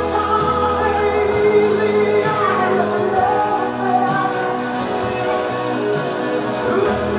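A song with singing and instruments, playing steadily.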